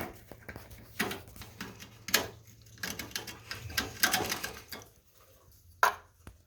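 Metal scraping as a tool takes the rough burr off the outer edge of a freshly cut and reamed water pipe, in about six short, irregular strokes.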